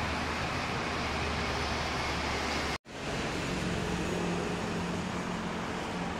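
Steady rumble of road traffic and distant trains around a railway station. The sound breaks off sharply just under three seconds in, then the same steady noise returns with a low hum.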